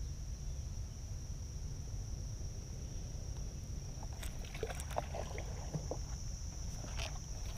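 Insects droning steadily on one high tone over a low rumble of wind. From about four seconds in come scattered light clicks and knocks.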